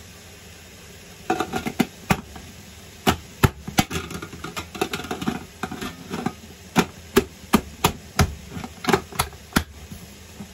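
Aluminium steamer lid and stacked tiers clattering as the lid is fitted and adjusted: an irregular run of sharp metal knocks and taps, some briefly ringing, starting about a second in.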